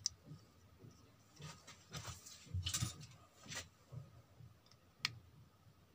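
Faint clicks and scrapes of small metal parts being handled: a 7805 voltage regulator being fitted to a small aluminium heatsink, with a sharp click about five seconds in.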